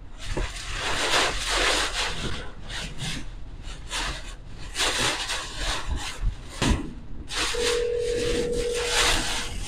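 Heavy storm rain and wind beating on a car from inside the cabin, coming in surges every second or two, with the windshield wipers scraping across the streaming glass. A steady single tone sounds for under two seconds about three-quarters of the way through.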